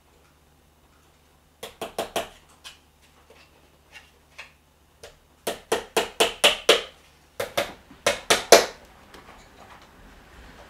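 Shoemaker's hammer tapping small tacks into a piece of leather held in the hand. The sharp taps come in three quick runs of four to six, about four a second, with a few single taps between.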